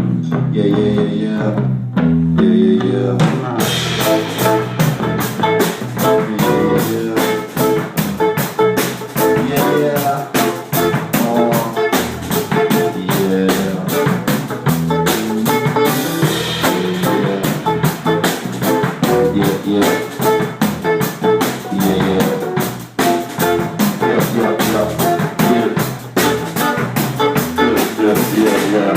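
Live rock band playing an instrumental passage: pitched guitar and bass notes at first, then the drum kit comes in about three and a half seconds in and keeps a steady, fast beat.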